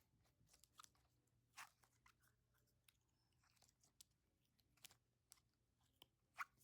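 Faint, irregular crackles and clicks from a NeeDoh Nice Cube squishy toy being squeezed in the hands, the loudest near the end.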